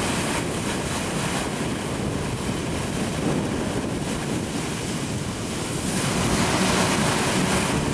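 Sea water rushing and splashing against a cargo ship's bow as it cuts through the waves, with wind on the microphone. A little louder from about six seconds in.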